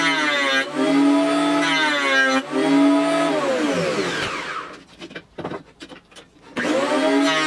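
Jointer's electric motor and cutterhead running with a steady whine that dips briefly twice as boards are fed across. The motor is then switched off and winds down, falling in pitch, and a few clicks are heard while it is stopped. About a second before the end it is switched back on and spins up to full speed.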